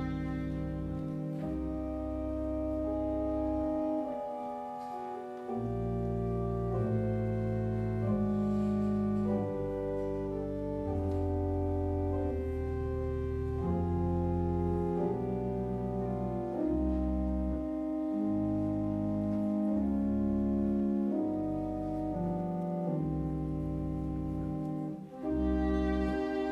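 Church organ playing a slow passage of sustained chords under a melody line, with the violin resting for most of it; a short pause in the bass comes about four seconds in, and the violin comes back in near the end.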